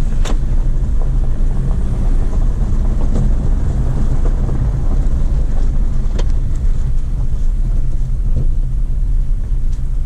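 Cabin noise of a 2018 Jeep Compass Trailhawk turbo diesel driving on a rough dirt track: a steady low rumble of engine and tyres, with occasional sharp knocks, the loudest right at the start and others about six seconds in and near the end.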